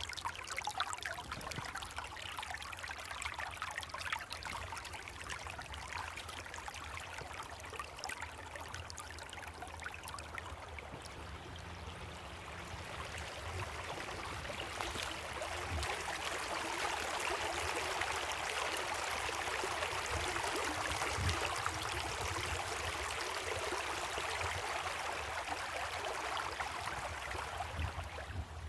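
Creek water running and trickling in a steady rush that swells louder about halfway through.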